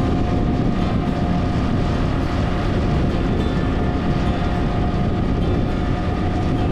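Motorcycle on the move at road speed: a steady engine drone under a heavy rumble of wind noise.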